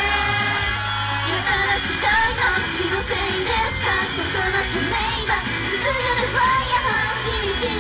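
An idol pop song performed live, with girls singing over loud, steady music.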